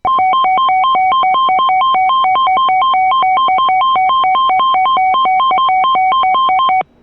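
Electronic alert tone: a loud, buzzy two-pitch warble switching rapidly between a lower and a higher note, about three cycles a second. It cuts off abruptly shortly before the end, leaving a faint hum. It is the attention signal that opens an emergency alert broadcast of a severe thunderstorm warning.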